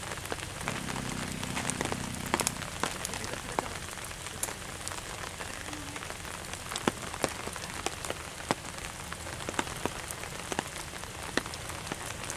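Steady patter of rain, with scattered sharp drop hits at irregular moments. A brief low hum sounds for about a second and a half near the start.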